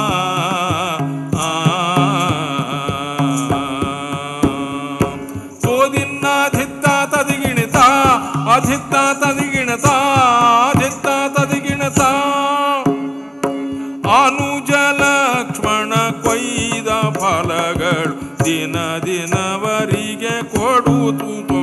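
Live Carnatic-style music: an ornamented, gliding melody over a steady drone, with hand-drum strokes throughout.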